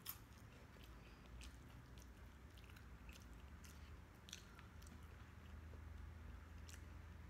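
Faint eating sounds of a person chewing sisig and rice, with scattered soft mouth clicks at an irregular pace, one a little louder about four seconds in.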